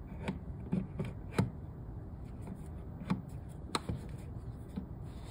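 Small clicks and knocks of a viewfinder being handled and seated onto a Rolleiflex SLX camera body, about eight irregular taps, the loudest about a second and a half in.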